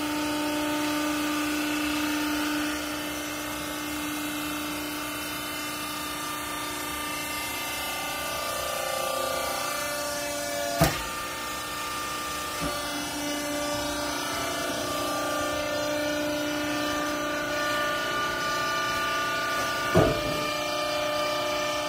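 Clothing baler running: a steady machine hum with several tones from its motor and hydraulic pump, shifting slightly in pitch partway through, with a sharp metallic clank about halfway and another near the end.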